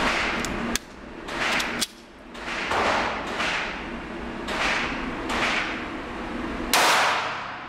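A string of about seven shots from a Diamondback DB380 .380 ACP pocket pistol, roughly one a second, each echoing in an indoor range, the loudest near the end.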